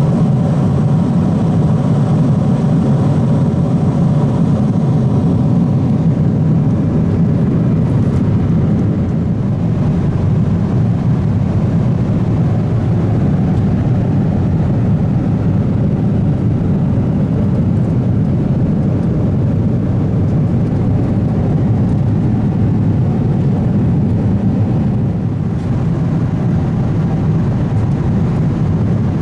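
Steady cabin noise of a Boeing 777-200ER in cruise: a continuous low rumble of engines and airflow with a softer hiss above it.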